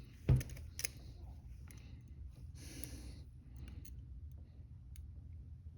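Hinged steel handcuffs being handled: a dull knock about a third of a second in, then a few light metallic clicks and a short rustle about three seconds in.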